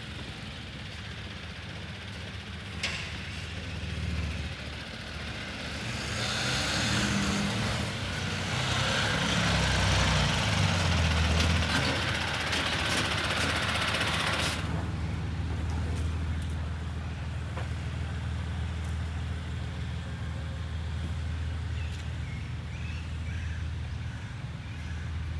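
Street traffic: a heavy vehicle's engine running close by with a steady low hum. A loud hiss rises with it and cuts off abruptly about fourteen seconds in.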